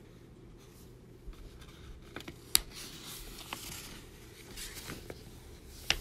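Paper pages of a thin picture book being turned and pressed flat: soft rustling with a few light clicks and taps, the sharpest about two and a half seconds in.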